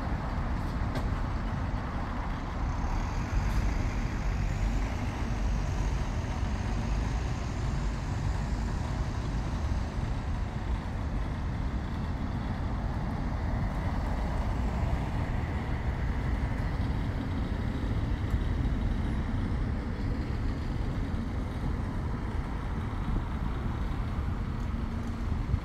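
Steady road traffic: the engines and tyres of a lorry, buses and cars passing, a continuous rumble with no pauses.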